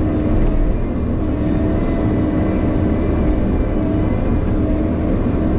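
Bobcat E50 mini excavator's diesel engine running steadily while digging, a constant low drone with a steady hum above it.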